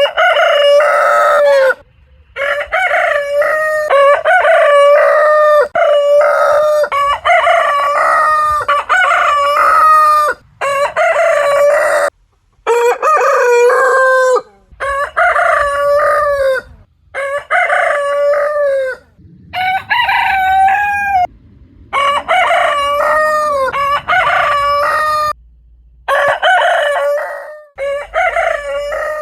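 Rooster crows, one after another in quick succession, each a loud pitched cock-a-doodle-doo of a second or two. Between crows the sound cuts off abruptly, as clips of different crows are spliced back to back.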